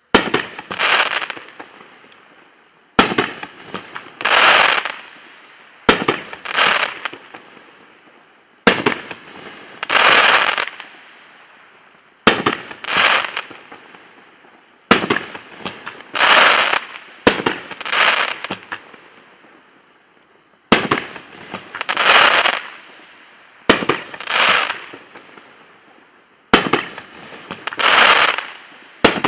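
Consumer fireworks cake (Jumping Skier, 16 shots) firing one shot about every three seconds. Each shot is a sharp launch thump, then the shell breaks in the air about a second later with a loud burst of crackling that fades out.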